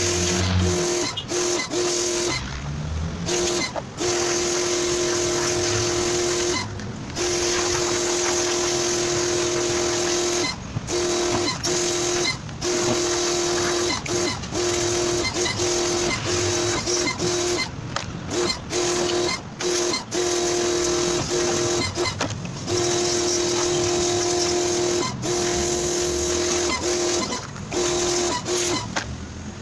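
Electric pressure washer spraying water, a steady motor hum under a loud hiss. It cuts out briefly many times, as in short trigger releases.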